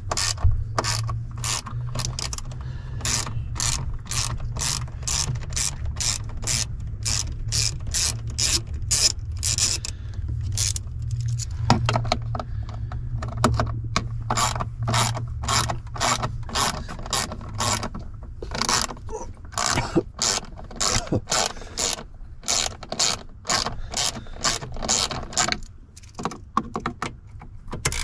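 A ratchet wrench with a 5.5 mm socket clicking in steady runs, with brief pauses, as the small screws holding a steering-column cover are backed out. A low steady hum sits underneath and stops about two-thirds of the way in.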